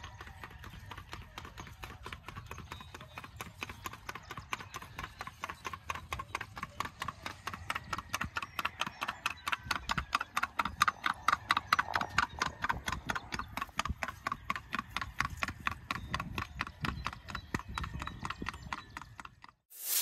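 Paso Fino gelding's hooves on a paved path in its rapid, even four-beat gait: a quick, regular clip-clop that grows louder as the horse passes about ten seconds in, then fades. It cuts off suddenly just before the end.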